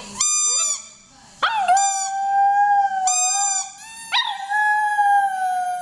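Maltese puppy howling in two long, steady notes, copying her squeaky toy. The toy's short, high squeaks sound near the start and again about three seconds in.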